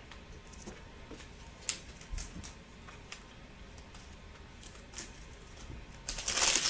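Faint clicks and taps of trading cards being handled, then a short crinkling rustle near the end as a foil card pack is handled or torn open.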